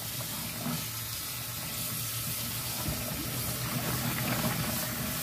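Kitchen tap running steadily into a stainless steel sink as mussels are rinsed under the stream, with a faint low hum beneath.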